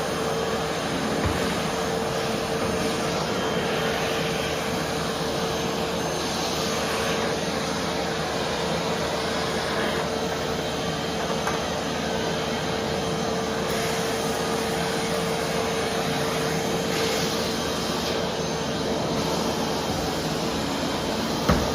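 Vacuum cleaner running steadily, an even rushing noise with a constant motor whine. There is one brief knock near the end.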